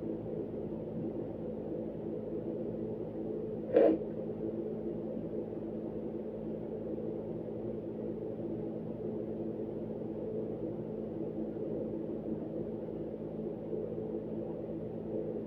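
A steady background hum, with one short, loud, sneeze-like burst about four seconds in.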